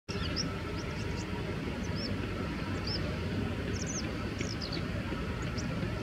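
Bull-headed shrike calling: a scattered string of short, high chirping notes, many of them arching up and down in pitch, over a steady low rumble of background noise.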